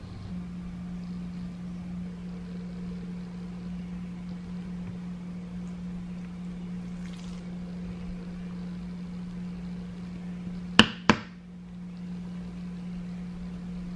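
A steady low hum, broken by two sharp knocks about a third of a second apart a few seconds before the end.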